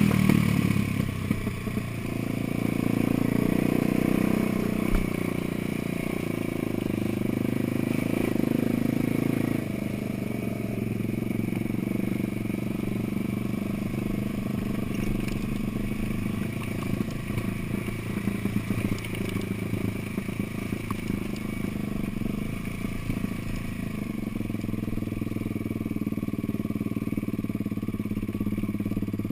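An off-road vehicle's engine running as it drives a rough trail, with rattling and clatter from the bumpy ground. The engine is a little louder for the first ten seconds or so, then eases off slightly and stays steady.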